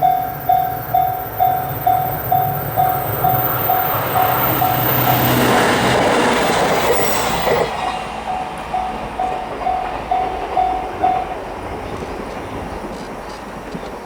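Japanese level-crossing alarm bell ringing about twice a second as a JR Sonic limited express electric train passes, loudest about five to seven seconds in. The bell stops about eleven seconds in while the train's sound fades away.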